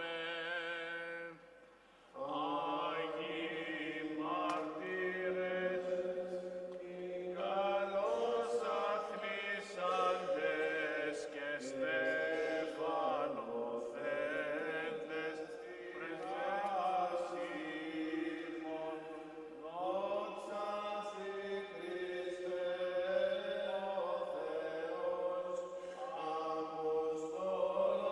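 Orthodox priests chanting a Byzantine hymn in a reverberant church, with a melody moving over a steady low held note. The chant pauses briefly about two seconds in, then continues.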